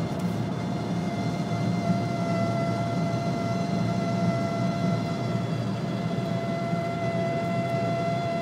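Steady squeak from the dashboard of a BMW 330 E91 at high speed: one held high tone with overtones over steady road and wind noise in the cabin. The owner says it appears only above 140 km/h; the tags point at the ventilation.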